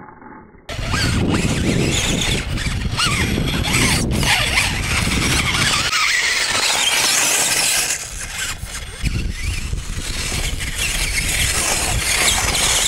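High-pitched squealing whine of an RC rock buggy's brushless motor and gearing as it crawls over the dirt course, wavering in pitch with the throttle over a low rumble. It starts abruptly under a second in.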